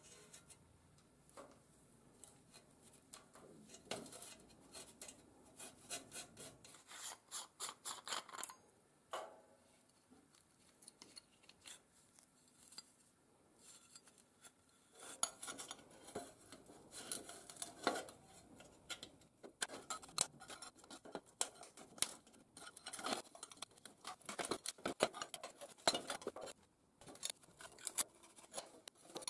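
Hand work on an old street lamp: scraping and rubbing with small metallic clicks and clinks as debris is picked out of the steel-and-glass housing, a metal tool works inside the lamp-socket fitting, and glass panes are handled against the frame. The clicks and scrapes come in irregular runs, busier in the second half.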